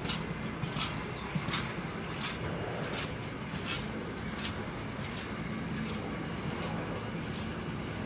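Freight train's steel-container wagons rolling slowly past over a steady rumble, with sharp wheel clicks in an even rhythm, about one every three-quarters of a second.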